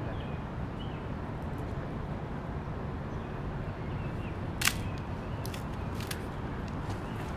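Mamiya 645 medium-format film camera's shutter firing once with a sharp click about halfway through, followed by a few lighter clicks, over a steady low outdoor rumble.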